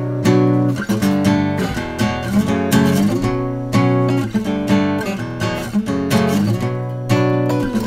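Two acoustic guitars strumming chords together in a steady rhythm: the instrumental opening of an acoustic pop punk song, with no singing yet.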